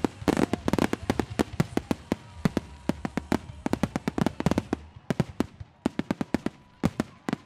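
Fireworks finale barrage: aerial shells bursting overhead in a dense, rapid run of crackles and pops that thins out about two-thirds of the way through, with a few louder bangs near the end.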